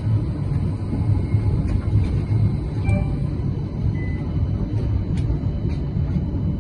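Steady low rumble of a CAF Urbos 100 tram running along the track, heard from inside at the front. A few brief, faint high tones sound over it.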